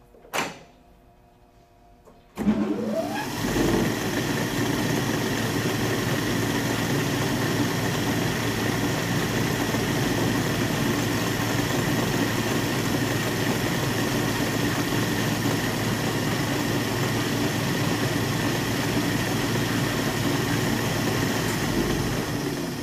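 Hardinge DV59 lathe's motor and headstock spindle starting up and running at speed: a click about half a second in, then a couple of seconds later the motor comes on with a quick rising whine and settles into a loud, steady whir with a high steady whine, starting to die down at the very end.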